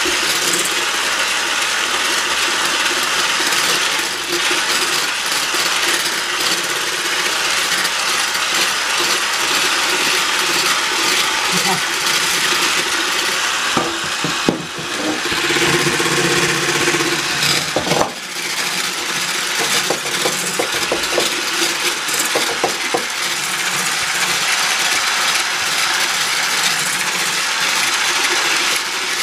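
Electric hand mixer running steadily, its beaters whipping egg whites toward stiff peaks in a stainless steel bowl. The sound dips briefly twice, about halfway through.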